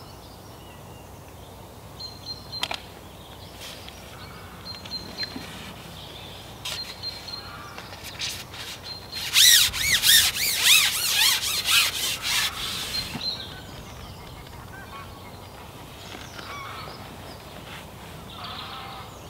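A burst of loud, rapid bird calls lasting about four seconds, starting about nine seconds in. Fainter bird calls and a thin high whistle come and go before it over a quiet outdoor background.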